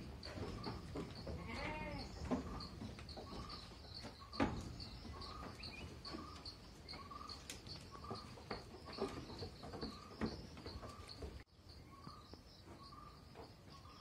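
A goat bleats once, about two seconds in, amid scattered knocks on a wooden slatted shed floor, the loudest about four seconds in. A steady, evenly repeated chirping runs underneath.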